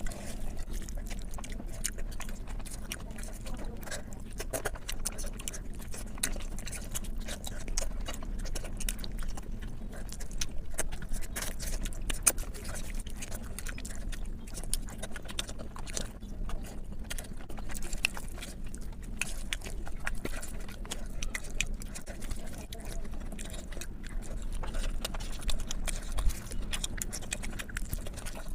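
Close-miked chewing and wet mouth clicks of someone eating biryani, a rapid, irregular run of small smacks and crunches.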